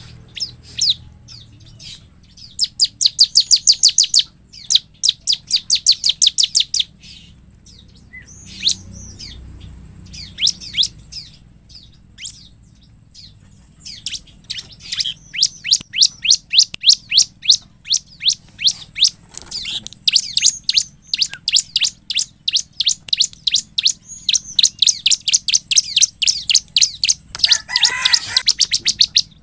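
Bar-winged prinia (ciblek) singing vigorously: fast series of short, high, dry chirps run together into trills, with a few pauses in the first half and an almost unbroken stretch through the second half. A short rasping, noisy sound cuts in near the end.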